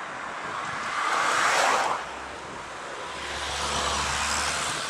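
Jet engine noise from a twin-engine Airbus A320-family airliner on final approach, heard from the ground as it flies away, mixed with gusty wind on the microphone. The noise swells to a peak about a second and a half in, drops off suddenly, then builds again with a low rumble near the end.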